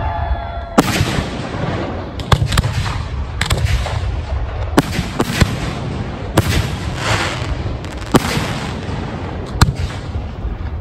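Fireworks going off: about ten sharp bangs of aerial shells bursting, spaced irregularly, over a continuous low rumble.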